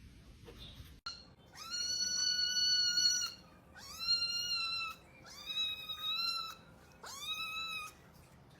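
Domestic cat meowing four times in long, drawn-out calls. Each call rises at the start and then holds its pitch, and the first is the longest.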